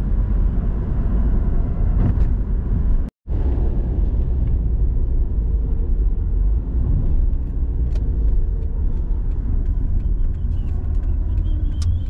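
Steady low rumble of a car's engine and tyres on a wet road, heard from inside the cabin, with scattered faint ticks. The sound drops out completely for a moment about three seconds in.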